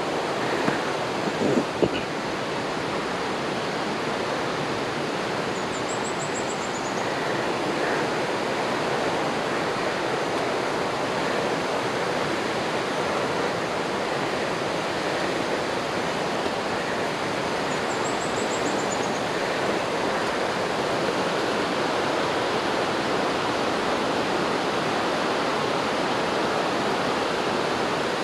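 Steady rushing of running water, an even unbroken wash of sound. A short high trill sounds twice, about six seconds in and again about eighteen seconds in.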